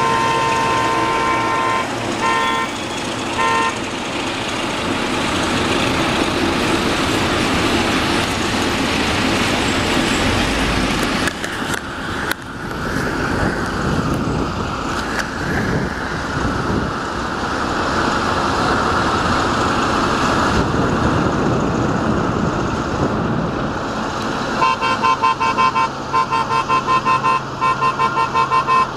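Whistle of a CFR 060-DA (Electroputere LDE2100) diesel-electric locomotive: one long blast and two short ones, then a steady rumble as the freight train runs past. Near the end the whistle sounds again as a rapid string of short toots.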